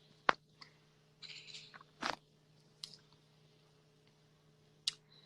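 Handling noise from a phone recording itself: a few sharp taps and clicks of fingers on the phone, with a short rustle in between, over a faint steady hum.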